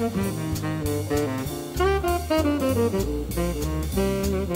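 Jazz background music: a stepping melody over a bass line and a steady drum beat.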